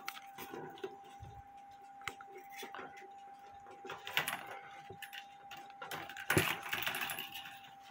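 Scattered light metallic clicks and jangles from a steel clock mainspring and a pair of tin snips being handled, with a louder stretch of scraping and rustling about six seconds in. A faint steady hum runs underneath.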